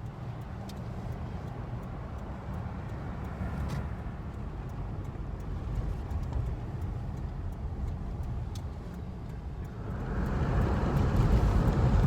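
Car driving: a steady low rumble of engine and road noise that grows louder about ten seconds in.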